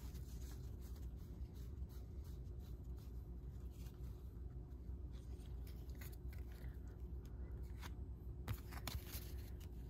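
Faint handling of trading cards and pack wrappers: scattered small clicks and rustles, a little busier near the end, over a steady low hum.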